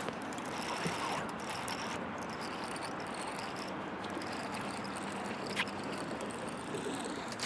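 Steady outdoor background noise with faint, high insect chirring.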